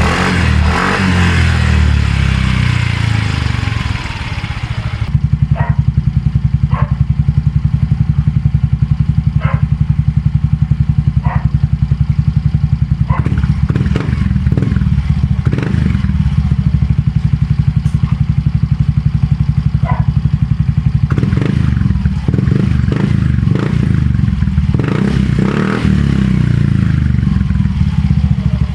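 Yamaha Mio Soul i 125 scooter's single-cylinder engine running through an Organ Sport V5 aftermarket exhaust with no silencer, a loud, steady putter. The revs fall back over the first few seconds, then it settles into an even idle.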